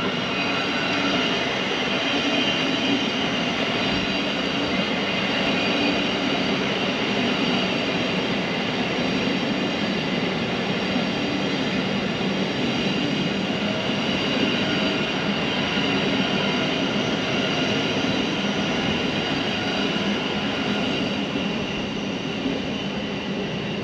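A train running on the line: a steady rumble with a few held tones over it, easing a little near the end.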